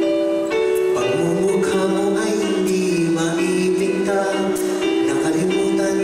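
Live band music with sustained keyboard chords, and a man singing into a microphone from about a second in.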